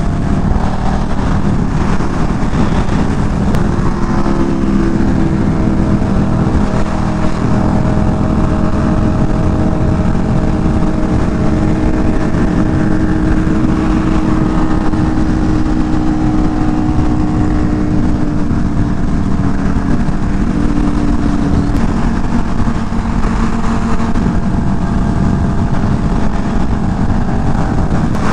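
Motorcycle engine running at a steady cruising pace under a constant rush of low noise, the engine note holding an even pitch and easing slightly lower partway through.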